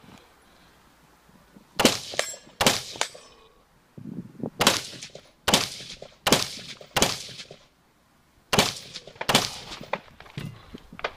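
Rifle shots during a practical shooting stage: about eight sharp reports fired at an irregular pace, in strings of two or three with short pauses between them.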